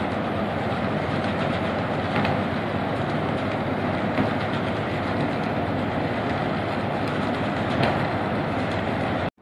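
Steady loud mechanical rumble and rush of a small container ship under way close by, its diesel machinery and wash running together, with a few sharp clacks at irregular moments.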